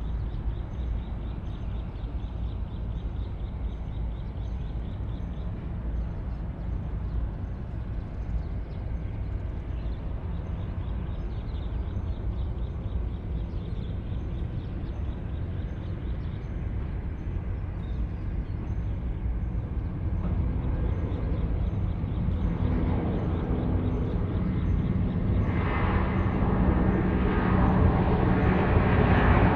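Jet engines of a departing Airbus A330 freighter: a steady low rumble that grows steadily louder over the last ten seconds or so, with the engine noise filling out and strengthening near the end.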